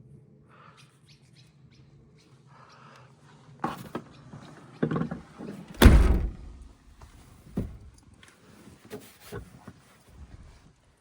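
A run of knocks and thumps from someone moving about in and around a car, the loudest a heavy thud about six seconds in.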